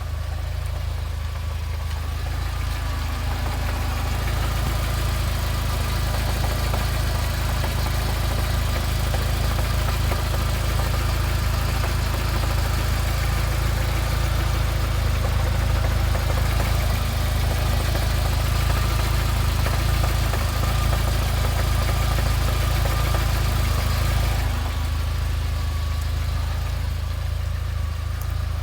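UAZ Patriot idling, with a knocking clatter from its manual gearbox over the steady engine note. The clatter drops away suddenly near the end, leaving the plain idle.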